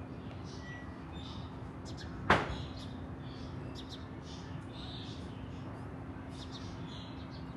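One sharp crack about two seconds in, dying away quickly, over steady background hiss with a faint low hum and scattered short high chirps.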